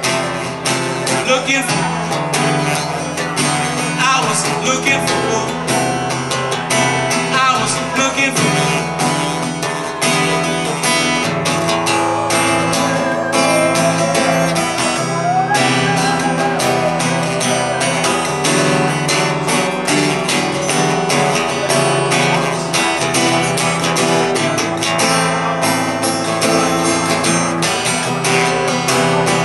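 Acoustic guitar strummed steadily, accompanying a ballad, with a man's singing voice over it at times.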